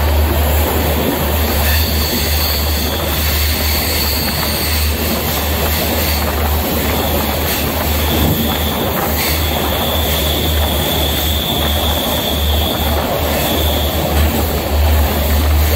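Passenger train running at speed through a rock tunnel, heard from the carriage doorway: a loud, steady rumble of wheels on rail, echoing off the tunnel walls. A faint thin wheel squeal rises over it a few seconds in and again past the middle.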